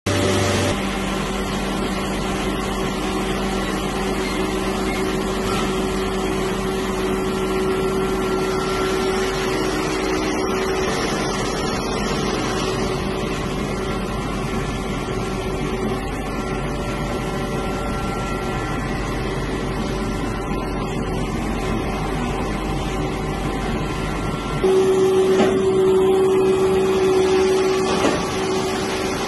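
Heidelberg Speedmaster SM 72 V four-colour offset press running: a steady mechanical hum with a held tone, getting louder for a few seconds near the end.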